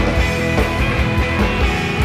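Indie rock song playing: guitar over a steady beat.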